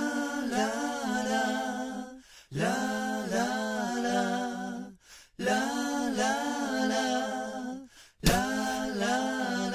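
A cappella vocal intro: wordless sung phrases over a held low note, in four phrases of about two seconds each with short breaks between.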